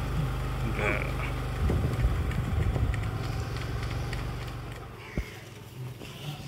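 A motor vehicle's engine running with a steady low hum that dies away about four to five seconds in. A single sharp click follows shortly after.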